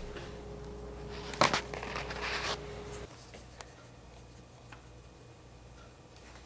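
Plastic spice shaker of garlic powder being handled: a sharp click about a second and a half in, a short rustle, then a few faint taps as the powder is shaken out onto a plate.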